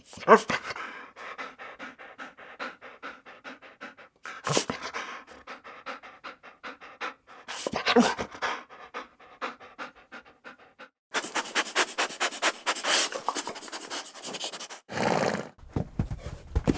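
Dog panting in quick, rhythmic breaths across several separate takes, with a few louder short sounds between them. Near the end a different, lower knocking sound begins.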